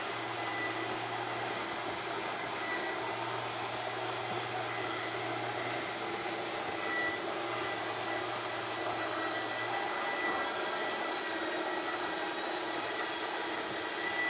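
An RV slide-out's 12-volt electric motors running steadily as the slide retracts: a continuous whine with a low hum underneath that drops away about ten seconds in.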